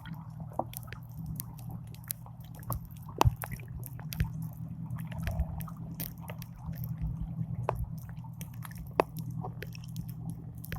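Irregular small clicks and crackles over a steady low hum, with a sharper click about three seconds in and another near nine seconds.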